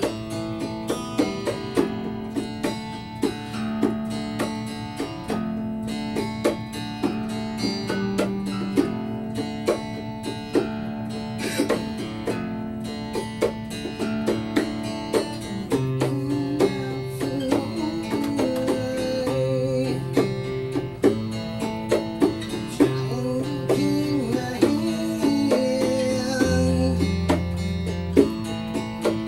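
Live acoustic rock music: strummed acoustic guitar with hand-played bongos tapping a steady beat. Low bass notes come in about halfway through.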